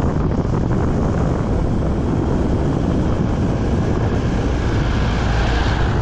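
Steady loud rush of wind buffeting the microphone of a camera riding on a moving bicycle.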